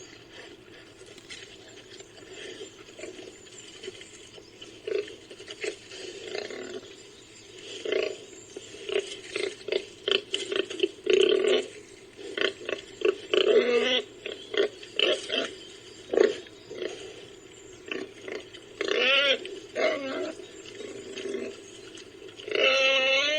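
Warthog grunts in a quick string of short bursts, with a few longer, higher calls that waver in pitch about halfway through and near the end.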